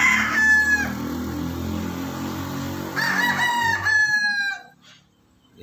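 Rooster crowing twice: one crow right at the start and a second about three seconds in, each ending in a long held note.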